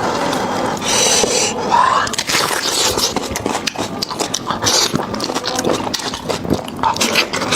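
Close-up eating of beef trotter: biting and chewing, with many short, irregular mouth clicks and smacks.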